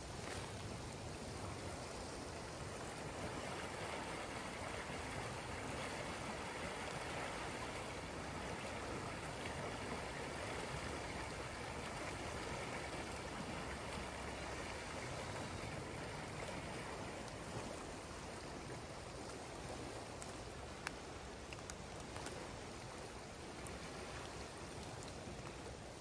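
River water rushing steadily past the bank, with a faint tick or two in the second half.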